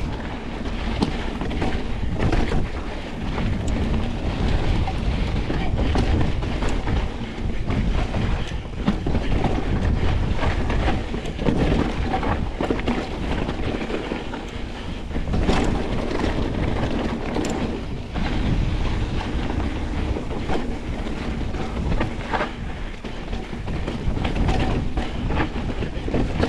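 2025 Pivot Switchblade mountain bike descending a rough trail: tyres rumbling over the ground, with frequent knocks and clacks from the bike over bumps, and wind on the microphone.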